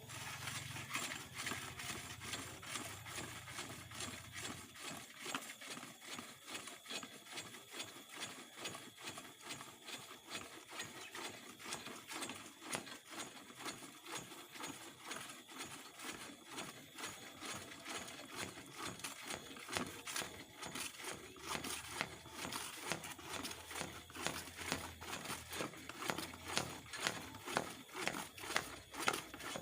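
Hand-worked check-valve (klep) bailing tool stroked up and down in a 1.5-inch well pipe, a steady rhythm of knocking, slapping strokes about twice a second. This is the stage of manual drilling where the tool is pumped to loosen the bottom of the bore and lift the mud.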